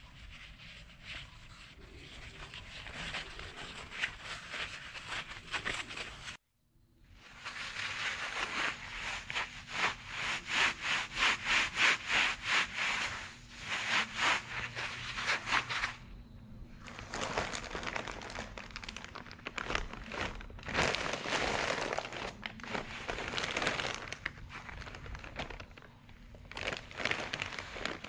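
White knit work gloves rubbing and rustling as they are pulled onto the hands, with runs of quick repeated rubbing strokes. The sound drops out briefly about six seconds in. Near the end, a plastic courier bag crinkles as it is handled.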